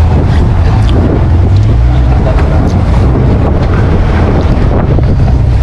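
Strong wind buffeting the microphone on a small fishing boat at sea, a loud steady low rumble with the wash of the sea underneath.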